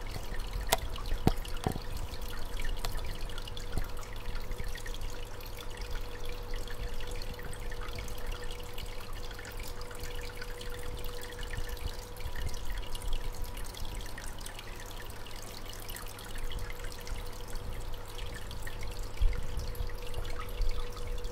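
Aquarium water trickling and dripping, as from a filter's return flow splashing into the tank, with a steady hum underneath and a few small clicks in the first two seconds.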